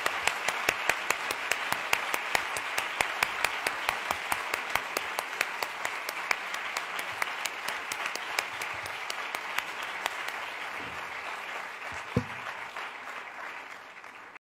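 Large audience applauding: a dense, even clatter of many hands clapping that gradually thins and fades over the last few seconds. A single low thump about twelve seconds in, and the sound cuts off abruptly at the very end.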